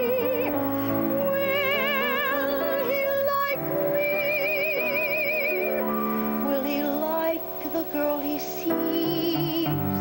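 A woman's voice singing a slow show-tune ballad, holding long notes with wide vibrato, over piano accompaniment.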